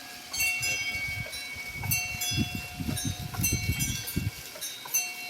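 Small metal bells chiming irregularly, rung by a water-driven wheel of cups that turns as sprayed water strikes it. Fresh strikes come every half second to a second and each rings on, over a low rumble.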